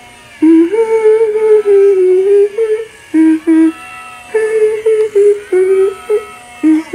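Spirit Halloween Rat Girl animatronic playing her recorded voice: a high, wavering singing voice in long drawn-out notes, broken by several short pauses.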